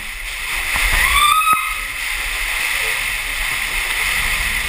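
Water sloshing and splashing around inside a rolling Zorb ball, heard from inside the ball as it tumbles downhill.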